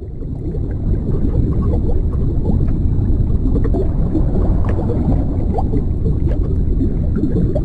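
The 'Underwater' tinnitus masking sound playing from the ReSound Tinnitus Relief app: a low, steady underwater rush with scattered bubbles. It fades in over about the first second.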